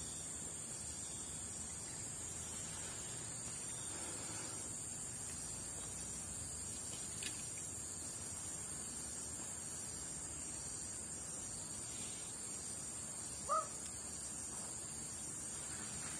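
Steady high-pitched chorus of insects, with a faint click about seven seconds in and one short animal call, the loudest sound, about thirteen seconds in.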